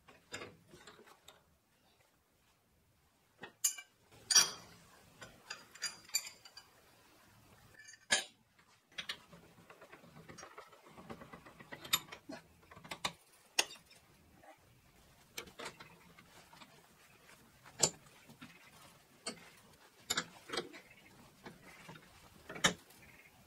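Scattered metallic clinks and knocks of steel rebar being handled and reset in a cast-iron bench vise during cold bending, with quiet gaps between them. Several sharper strikes ring briefly, the loudest in the second half.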